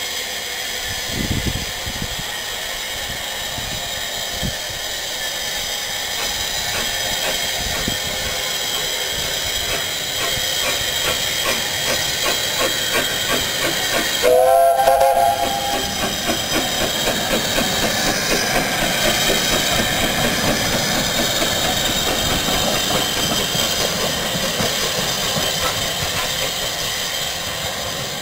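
SECR P class 0-6-0 tank engine No.323 "Bluebell" hissing steam, sounding one short whistle blast about halfway through that rises slightly in pitch at its start. It then moves off with a steady rhythmic chuff from its exhaust.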